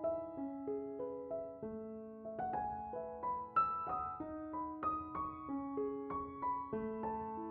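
Background piano music: a slow, gentle melody of single struck notes over lower held notes.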